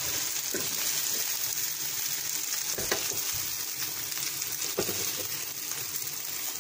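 Chapli kebabs sizzling on the hot ridged plate of an electric contact grill, a steady hiss, with a few short knocks and scrapes as a spatula lifts them off onto a plate.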